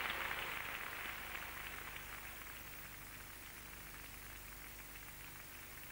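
A crackly hiss fades over the first two seconds, leaving a faint, steady background hiss with a low hum, the noise of an old film soundtrack.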